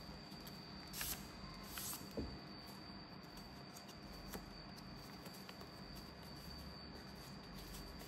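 A sheet of paper being handled and folded by hand, with soft rustles and two brief crinkles about one and two seconds in.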